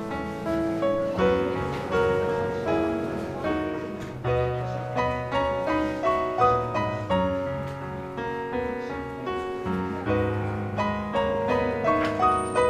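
Background piano music: a calm melody of struck notes over sustained bass notes.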